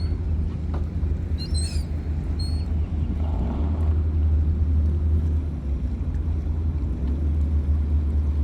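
A steady low rumble, with brief high bird chirps about one and a half and two and a half seconds in.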